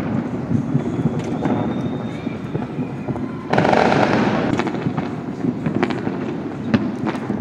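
Many fireworks going off at once across a city: a continuous rumble of distant bangs and pops. A louder burst of crackling comes about three and a half seconds in.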